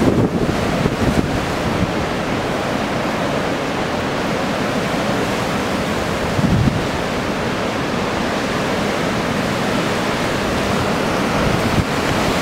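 Storm wind and heavy surf make a steady rushing noise, with gusts buffeting the microphone near the start and about six and a half seconds in.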